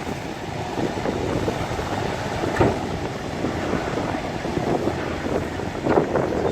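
Heavy diesel earthmoving machinery running at a work site, a steady rumbling noise with wind buffeting the microphone, and two brief louder knocks about two and a half and six seconds in.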